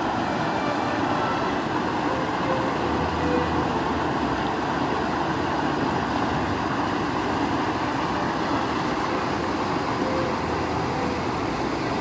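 Stream water rushing steadily over a low weir, a constant even rush of falling and churning water.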